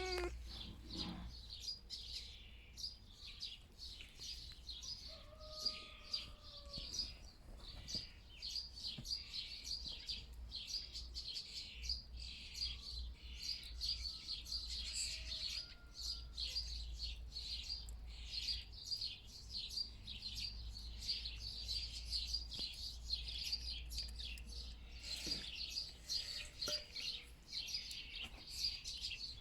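Small birds chirping without a break, a dense chorus of short, high chirps over a steady low rumble.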